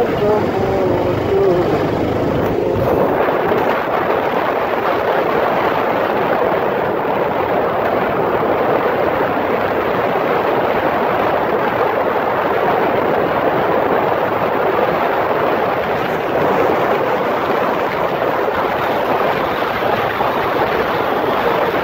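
Motorcycle riding at speed: a steady rush of wind and road noise over the engine. In the first two or three seconds a falling engine note stands out before the wind rush takes over.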